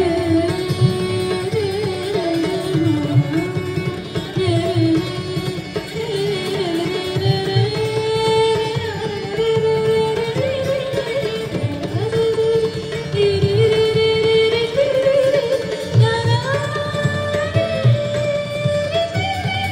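Indian classical music played live: an Indian slide guitar carrying a gliding raga melody over tabla, with a woman's voice singing along.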